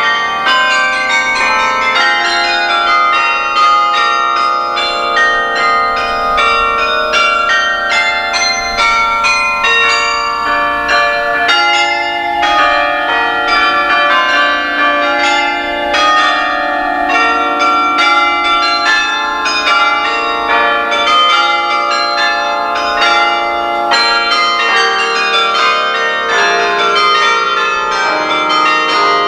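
Carillon bells played from the baton keyboard, sounding a carol melody in many quick strokes, with the notes ringing on and overlapping one another.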